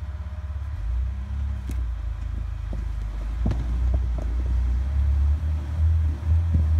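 Off-road vehicle's engine running under load at crawling pace, rising in level about a second in and surging a few times, with a few short knocks.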